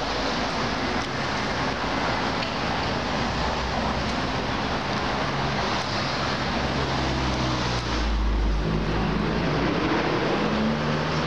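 Street traffic: a steady rush of passing vehicles, with car engine notes coming through in the second half and one rising in pitch near the end.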